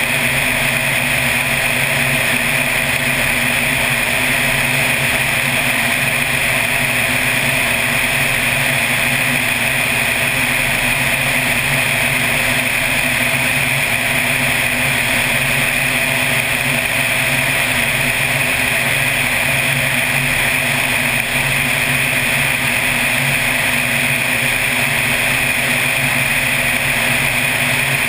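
Floatplane's piston engine and propeller droning steadily in cruise, with wind rushing past an outside-mounted microphone.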